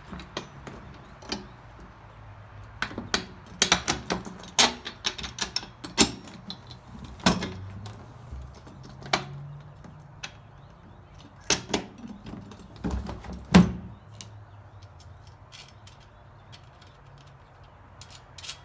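Irregular clinks and knocks of metal wheelbarrow leg pieces and bolts being handled and fitted by hand, with one sharper knock about two-thirds of the way through and fewer sounds near the end.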